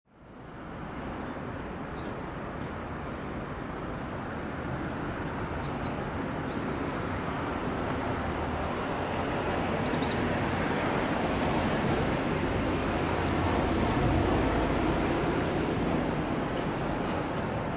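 JR Freight HD300 hybrid shunting locomotive moving slowly with container wagons, a steady rumble that grows gradually louder as it comes closer. A bird gives four short, high falling chirps over it.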